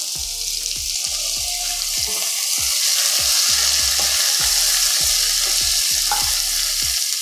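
Hot oil sizzling steadily in a kadai as chopped onions, red capsicum and tomatoes fry, stirred with a spatula; the sizzle swells to its loudest about halfway through.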